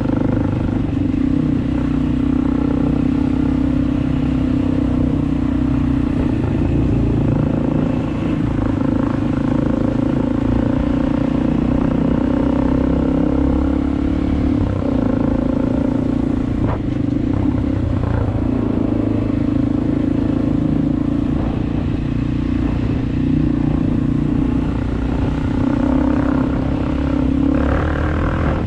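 Dirt bike engine running steadily under way, its pitch dipping and picking up again several times as the rider eases off and back on the throttle.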